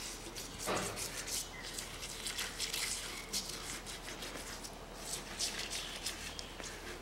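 A hand tool scraping and brushing softened carbon deposits out of the combustion chambers of a Toyota cylinder head, in short irregular scratchy strokes.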